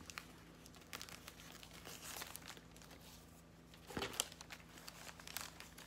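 A small candy bag and its wrapped candies crinkling and crackling faintly as they are handled, with a couple of sharper crackles about four seconds in.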